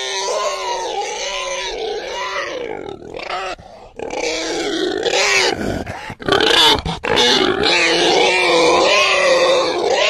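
Domestic pig squealing in long, wavering, pitched calls, broken by short pauses about four and six seconds in.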